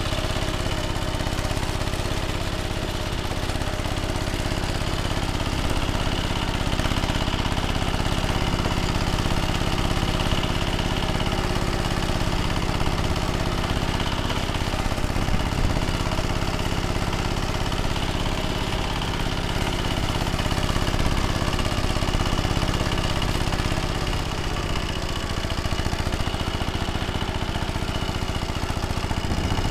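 ZUBR 10 hp walk-behind tractor's single-cylinder engine running steadily while it drives the rotary tiller through the soil, its note shifting slightly near the end.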